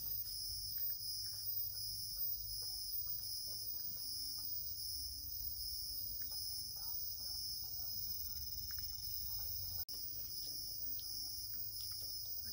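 Insect chorus chirring high and pulsing about twice a second, over a low rumble. Near the end the pulsing gives way to a steady high drone after an abrupt break.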